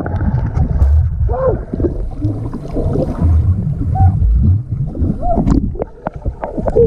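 Water sloshing and gurgling close around a GoPro's microphone, with an uneven low rumble that surges and drops. Short, faint squeaks now and then.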